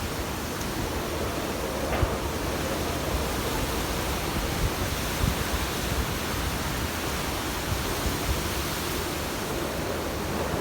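Steady rushing noise, heaviest at the bottom, with a few brief low thumps, such as wind buffeting the microphone.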